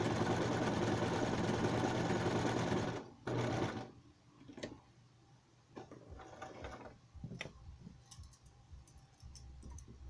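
Electric sewing machine running steadily, stitching a zigzag seam through fabric, then stopping about three seconds in after a brief final spurt. Then a few faint clicks and rustles as the fabric is drawn out from under the presser foot.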